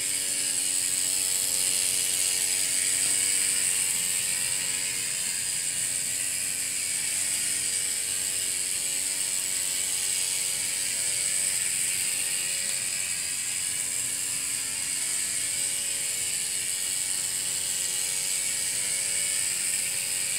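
Miniature one-cylinder, single-acting steam engine driving a small model railroad speeder running steadily around its track, with a steady high hiss.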